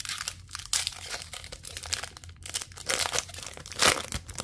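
Plastic wrapper of an O-Pee-Chee Platinum hockey card pack being torn open and crinkled by hand: irregular rustling crackles, the sharpest about four seconds in.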